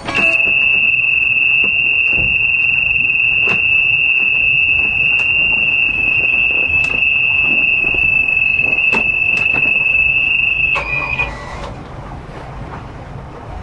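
Boat helm warning buzzer sounding one steady high-pitched tone for about eleven seconds, then cutting off, with a few faint clicks over it.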